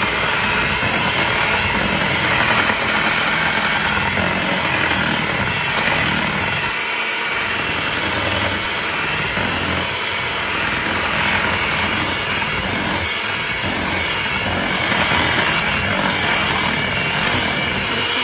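Electric hand mixer running steadily, its beaters whipping a thin liquid batter of eggs, oil and buttermilk in a bowl.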